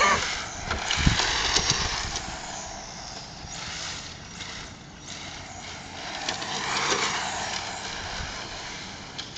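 HPI Sprint 2 Flux brushless electric RC car running on asphalt: a high motor whine with tyre noise that swells and fades as the car speeds away and comes back, loudest about a second in and again about seven seconds in.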